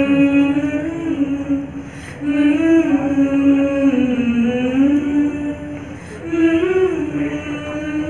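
A small group of women singing one melody together into microphones, in long held phrases with short breaks about two and six seconds in.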